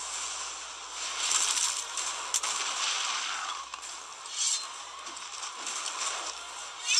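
Fight-scene sound effects: noisy rushing swells, with a sharp crack about two and a half seconds in. The sound is thin, with almost no low end.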